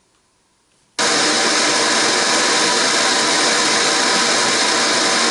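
Pink noise test signal switched on about a second in and played loud and steady through a Diamond Audio Neo 6.5-inch motorcycle speaker in a fairing pod: an even, full-range hiss that reads about 95 dB on the SPL meter.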